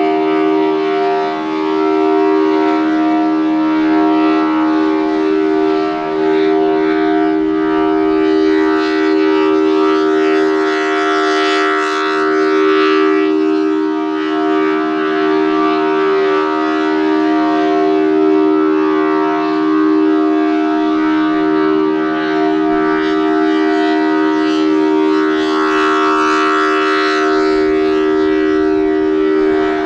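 Federal Signal Thunderbolt 1000T mechanical siren with a 4/5-port chopper sounding its steady full-alert tone, a two-note chord held level in pitch. The rotating horn sweeps past twice, each time bringing a brighter, louder swell.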